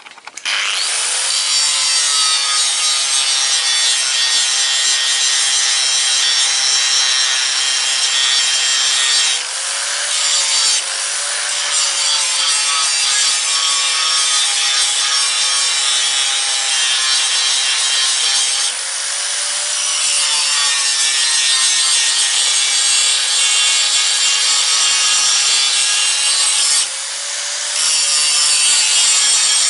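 Angle grinder running continuously, grinding the remains of a spot weld off steel car bodywork. Its motor note rises briefly three times, about a third of the way in, about two-thirds in and near the end, as the disc is eased off the metal.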